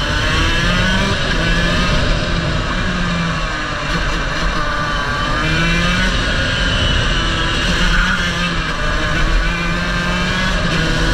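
Racing kart engine heard from on board, at speed, its revs rising and falling again and again as it is driven round the track.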